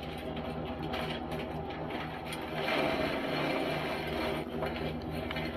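A machine running steadily with a regular low pulsing of about four beats a second, louder for a couple of seconds in the middle.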